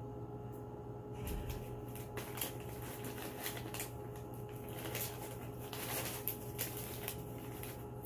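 Small decorative stones clicking and rattling as they are handled in the plastic basin of a desk water fountain: a scatter of light, irregular clicks starting about a second in, over a faint steady room hum.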